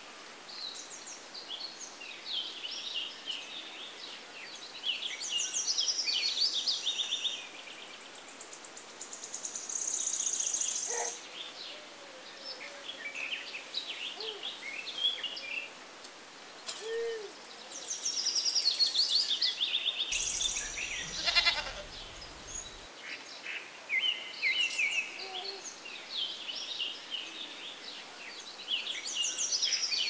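Small birds singing and chirping, with fast trills and runs of rapid repeated notes coming and going, and a fast rattling run about two-thirds of the way through.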